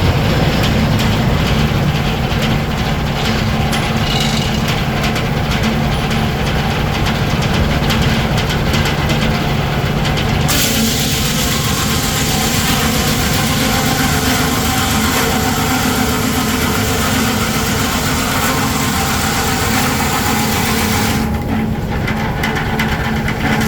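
Steam-powered sawmill running with a steady low mechanical hum. About ten seconds in, a bright high-pitched noise suddenly joins it; it drops away about two seconds before the end and returns right at the end.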